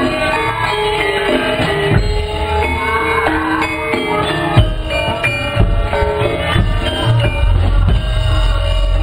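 Javanese gamelan ensemble playing: bronze bonang kettle gongs and metallophones ring out a stepping melody of held notes over steady drum strokes.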